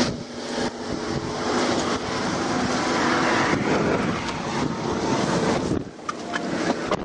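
Highway traffic passing close by: the rush of tyres and engines swells as vehicles go past, loudest about halfway through, with a few short clicks near the end.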